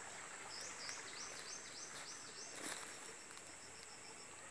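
Forest ambience: insects droning steadily at a high pitch, with a bird singing a quick run of repeated slurred whistled notes from about half a second in to the middle, and one brief knock just after.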